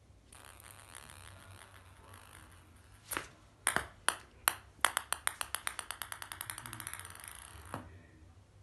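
A small light ball, like a ping-pong ball, bouncing on a hard floor. A few loud bounces come about half a second apart, then quicker and quicker, fainter ticks as it settles.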